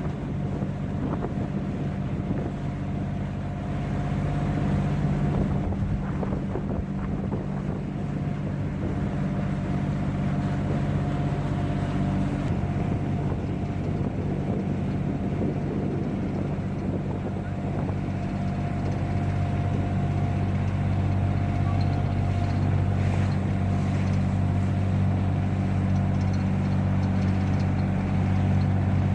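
Small tour boat's engine running steadily as the boat moves along, a low hum with a faint higher whine above it. Its note shifts slightly and grows a little louder about two-thirds of the way through.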